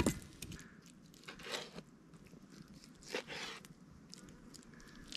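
A sharp knock right at the start, then a few short, faint crunching scrapes of a knife working raw crayfish meat on a plastic chopping board.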